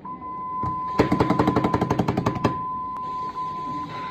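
Hidaka 12V/24V machinery radio under bench test, sounding a steady high test tone. About a second in, a fast stutter of loud even pulses, about ten a second, lies over the tone for about a second and a half, then the tone carries on alone.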